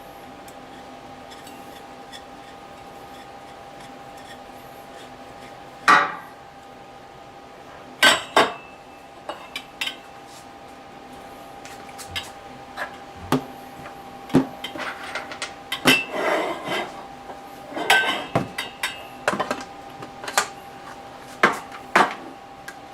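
Metal bars and fittings of a gun vise being handled and fitted together: sharp separate knocks and clinks, starting about six seconds in and coming more often in the second half, over a faint steady hum.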